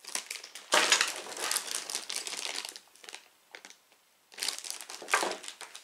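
Clear plastic bags of LEGO parts crinkling as they are handled and held up, in two spells: about three seconds of rustling, a short pause, then more crinkling near the end.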